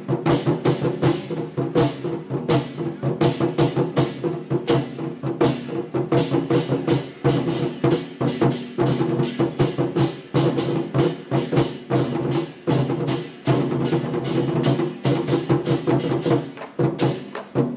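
Chinese war drums (zhangu) played by an ensemble in fast, dense, driving strikes, several a second, over backing music with sustained brass-like tones.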